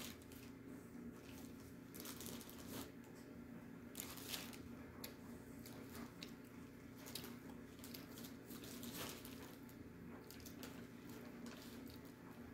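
A person biting and chewing pieces of dry edible clay: irregular crisp crunches every second or so, over a steady low hum.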